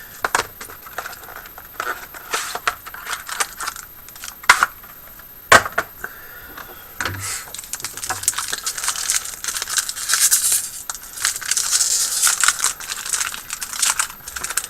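Plastic wrapping on a sealed trading-card box being torn off and crumpled, with two sharp snaps about four and a half and five and a half seconds in, and steady crinkling through the second half.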